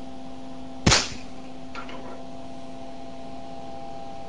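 Edgerton's boomer firing: its capacitor bank discharges through a spark-gap switch into the coil with one sharp, loud crack about a second in, the pulsed magnetic field driving a spark across the gap of a wire loop above it. A fainter crackle follows, over a steady hum.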